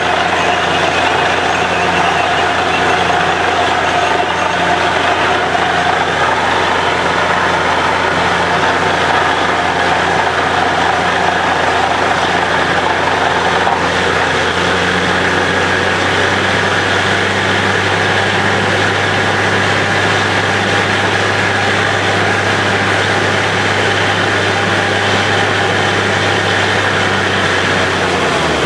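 Borewell drilling rig running steadily while drilling: a diesel engine's continuous drone, with a steady hiss and spatter of slurry being blown out of the bore. The engine note steps up slightly about halfway through.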